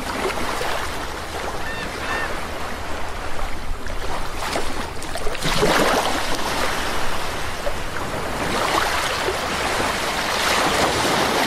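Sea surf: waves breaking and washing in, the rush swelling and easing every few seconds.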